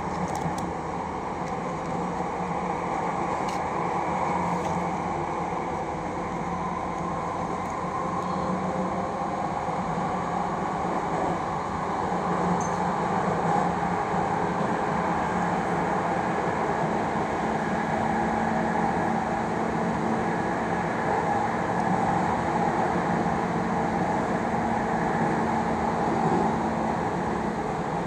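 Jakarta MRT train running at speed between stations, heard from inside the passenger car: a steady rumble and hum of wheels and traction. It grows a little louder about halfway through.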